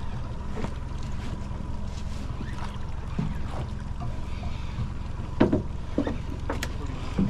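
Boat engine running steadily at idle, a low hum with a thin steady tone above it. About two seconds before the end come four short knocks, a little over half a second apart, the first the loudest.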